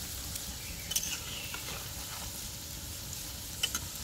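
Bottle-gourd batter fritters deep-frying in a karahi of hot oil, sizzling steadily. A few short sharp clicks come about a second in and again near the end.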